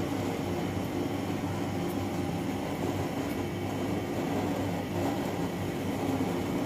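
Steady low mechanical hum of a running appliance in the room, even throughout with no strokes or breaks.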